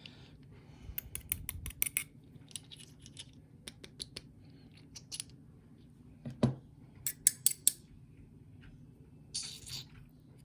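Light metallic clicks and taps of small lock pins and tools being handled while a gutted lock cylinder is laid out, in quick clusters about a second in and again around seven seconds in. A duller knock comes just before the second cluster, and a short scrape near the end.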